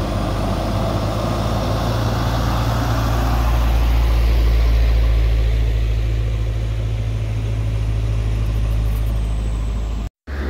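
Heavy road vehicle's engine and road noise: a loud, low, steady rumble that builds to a peak about four to five seconds in and then eases off, broken by a brief dropout near the end.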